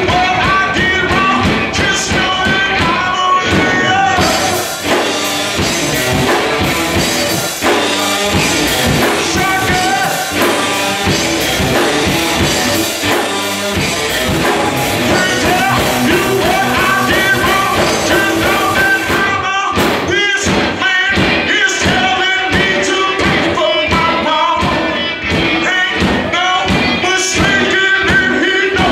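Rock band playing live with a singer, loud and with a steady beat. About four seconds in the sound turns denser and brighter, and about twenty seconds in it breaks back into sharp, separate beats.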